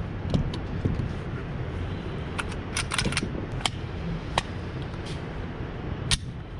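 Scattered sharp clicks and ticks, about nine in all and bunched together around the middle, over a steady low rumble.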